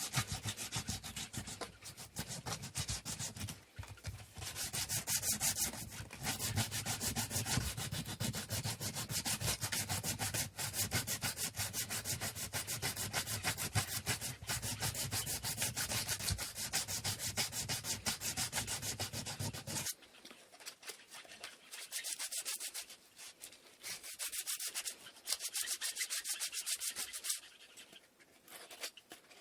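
Sandpaper rubbing on a wooden stick in rapid back-and-forth hand strokes. After about 20 seconds the strokes turn lighter, with a few short pauses.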